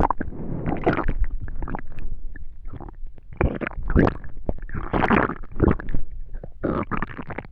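A human stomach making digestion noises: an irregular run of short bursts, one after another, with brief gaps between them.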